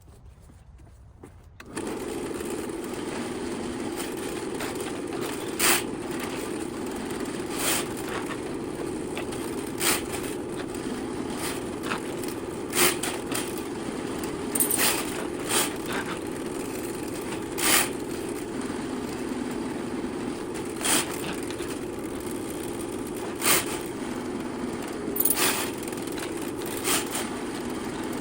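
A drain-cleaning machine's motor switching on about two seconds in and running steadily while clearing a main sewer line, with sharp knocks every second or two, likely from the cable.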